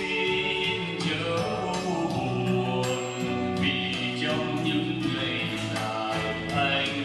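Karaoke playing over a pub's sound system: a backing track with a singer's voice, in Vietnamese.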